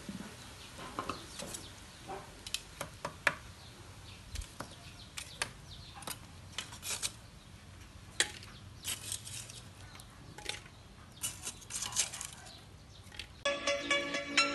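Metal spatula clacking and scraping against a large steel wok of stir-fried noodles: scattered sharp, irregular clicks and knocks. Electronic music starts near the end.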